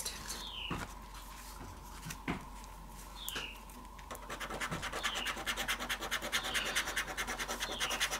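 Scratch-off lottery ticket being scratched: a few separate scraping strokes at first, then quick, even back-and-forth scraping from about four seconds in.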